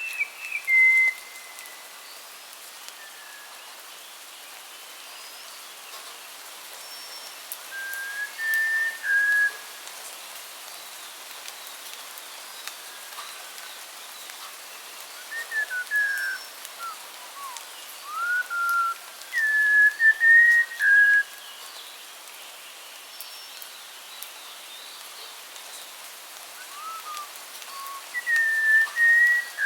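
A songbird singing short, clear whistled phrases every few seconds, with pauses of several seconds between them. Behind it is a steady hiss.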